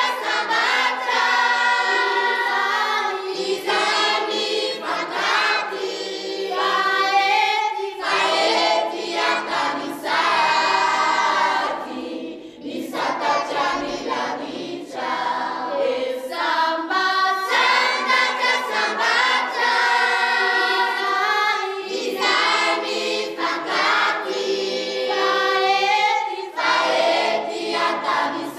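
Choir of many voices singing a church hymn, with a brief break about twelve seconds in.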